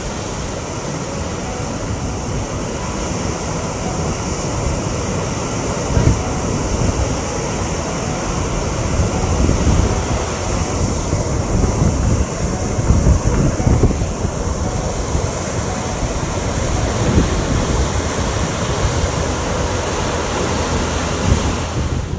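Water rushing and churning through the open sluices of a canal lock gate as the lock chamber fills, a steady loud rush. Gusts of wind buffet the microphone now and then.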